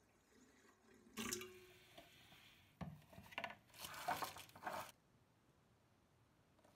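Water poured from a plastic jug into a stainless steel stand-mixer bowl, splashing in two short bursts with a single knock between them.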